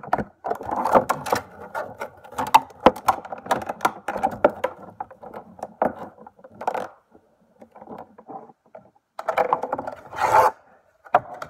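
Handling noise from small plastic toy figures and clear plastic packaging: rapid clicks, crinkling and scraping. It eases off a little past the middle, then there is a louder burst of rubbing close to the microphone near the end.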